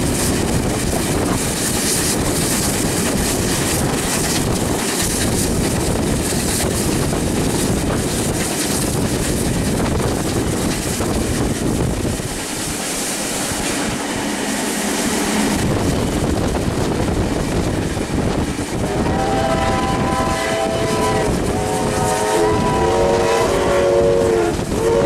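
Steam train running noise heard from aboard: a steady rush of wheels, rail and wind. Near the end a steam whistle blows twice, two long blasts of several notes sounding together.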